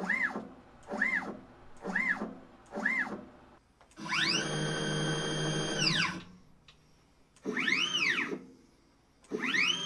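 Stepper motors driving the axes of a Dyna Myte 2800 CNC milling machine, singing in rising-then-falling whines as the axes move under CNC control. First come four short jogs about a second apart. Then a longer move ramps up in pitch, holds a steady whine for about two seconds and ramps back down. Two more short moves follow near the end.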